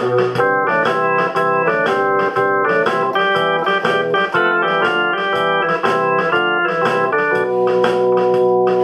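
Instrumental keyboard music with an organ-like tone: a melody of short held notes moving over sustained chords at a brisk, even pace.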